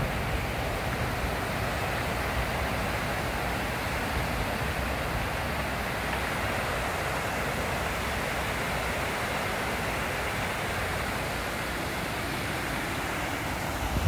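River water spilling over a low concrete weir, a steady rushing hiss.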